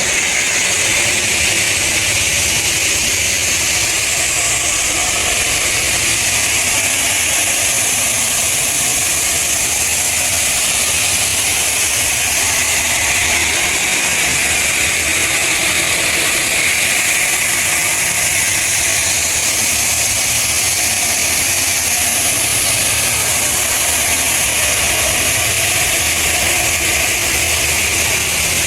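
Steady, loud industrial machine noise with a strong hiss and a low hum underneath, running without a break.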